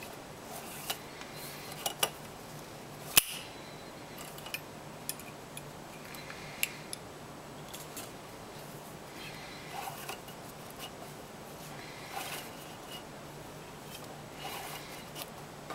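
Paracord being looped and pulled tight in a cobra weave: short rustling swishes of the cord and scattered small clicks and taps, the sharpest about three seconds in.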